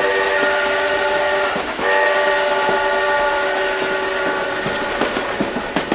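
Train whistle sounding a multi-tone chord: one long blast that breaks briefly just under two seconds in, sounds again for about four seconds and then stops, with a few clicks near the end.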